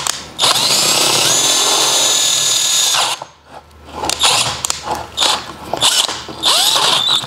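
Hand-held power drill boring out a damaged bolt hole in a diesel rocker cover with a thread-repair drill bit. The drill runs steadily for about three seconds and speeds up a second in, then stops briefly. After that come several short stop-start bursts of drilling.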